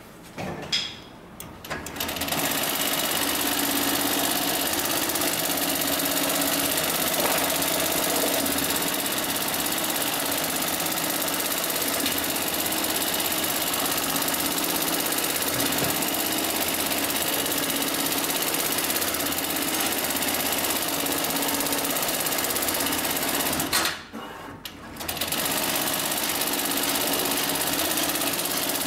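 HighTex MLK600-3020 automatic pattern sewing machine stitching a programmed pattern through heavy lashing-strap webbing, running steadily at a high stitch rate. It starts up about two seconds in, stops for about a second near the end, then carries on sewing.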